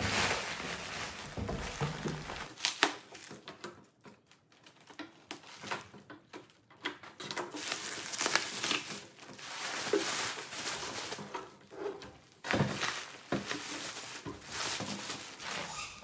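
Plastic bubble wrap crinkling and rustling as it is handled and pulled off a large package, in irregular bursts, quieter for a few seconds in the middle.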